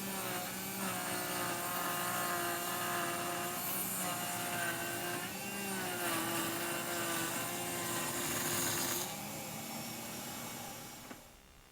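Bosch Colt trim router in a router table running at high speed, a steady whine whose pitch sags and recovers as the bit cuts a rabbet along birch plywood being fed past it. The motor falls away near the end.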